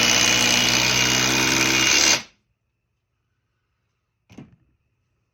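Milwaukee gen 4 impact driver (2953-20) driving an 8-inch timber lock screw into Douglas fir at full speed, stopping abruptly about two seconds in as the screw is driven home. A faint click follows near the end.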